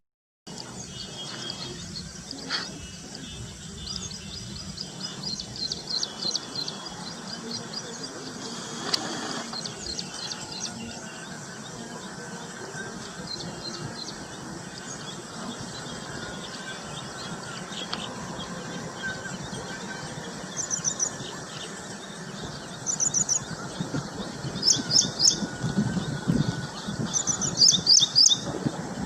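Small birds chirping in short, high notes. The chirps are scattered at first, then come quicker and louder over the last several seconds.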